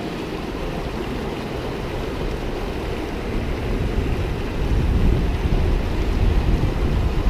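Steady rush of a small mountain creek, with wind buffeting the microphone and growing stronger about four seconds in.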